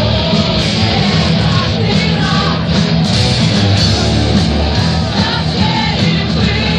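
Live hard rock played by a massed group of dozens of musicians: distorted electric guitars over heavy bass, with many voices singing in a shouted style. Loud and dense, with no breaks.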